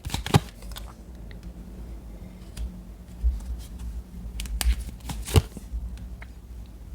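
Tarot cards being handled: a few short, sharp card snaps and slides at the start, quiet handling, then more snaps about four and a half to five and a half seconds in.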